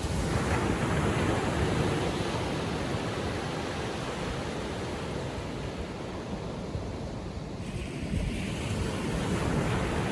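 Small waves on a calm sea breaking and washing up the beach, a steady surf hiss that swells just after the start and again near the end.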